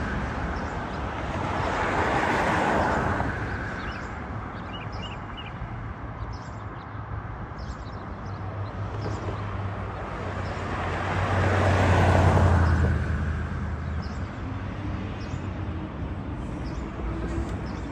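Road traffic outdoors: vehicles pass twice, each a noise swelling and fading over a few seconds, the second with a low engine hum. Faint, short bird chirps come between them.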